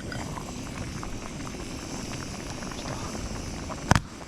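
Campfire burning with a steady hiss and scattered small crackles, and one loud sharp pop of the wood near the end.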